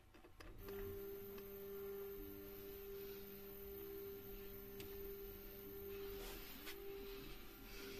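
Stepper motors of a Hypercube Evolution 3D printer's Z axis running at steady speed while lifting a 4 kg load: a steady whine that starts just under a second in, with a fainter lower tone beneath it.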